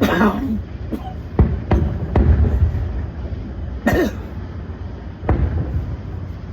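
Fireworks going off: a run of sharp bangs, several close together in the first two seconds and more about 4 and 5 s in, over a low steady rumble. A short cough-like sound comes at the start and again about 4 s in.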